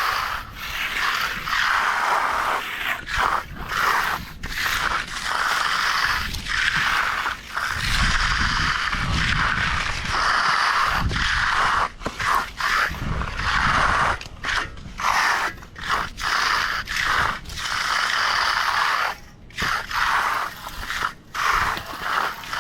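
A hand tool scraping over concrete in repeated irregular strokes, about one or two a second, with heavier, deeper strokes around the middle.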